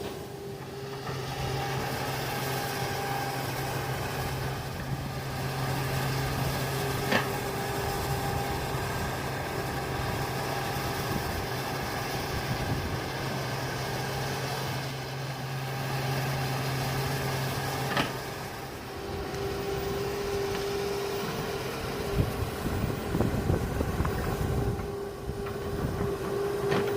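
Hydraulic excavator's diesel engine running steadily while digging, with a sharp clank twice and a run of irregular knocks near the end as the bucket works.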